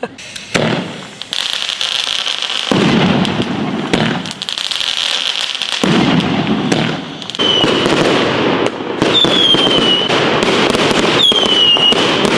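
Long strings of Chinese firecrackers going off in a dense, continuous crackle of rapid bangs, building up within the first second or so. From about seven seconds in, several high whistles that fall in pitch sound over the crackle.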